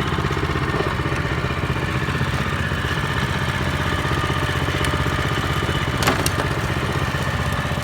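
Small engine of a walk-behind rotary tiller running steadily with the tilling gear selected, with one brief sharp clack about six seconds in.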